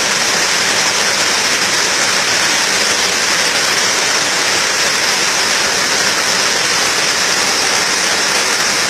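Fast floodwater rushing over a submerged bridge: a loud, steady, unbroken rushing noise.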